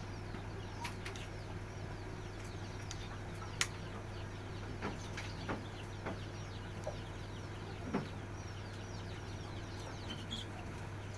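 Many chicks peeping all at once: a dense chorus of short, high, falling chirps, over a steady low hum, with a few sharp taps.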